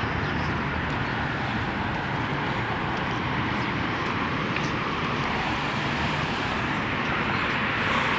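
Steady outdoor background noise, a constant rumble and hiss with no distinct events.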